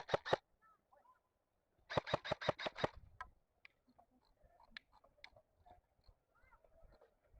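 Airsoft gun firing on full-auto: a burst that cuts off just after the start, then another burst of about eight rapid shots, about a second long, beginning about two seconds in. Faint scattered clicks and short chirps follow.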